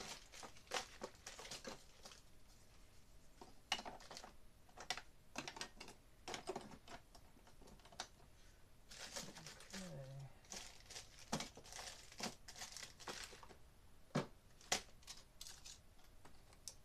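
Rummaging through a toolbox for a roll of black electrical tape: irregular clicks, clatter and rustling as tools and rolls are shifted about.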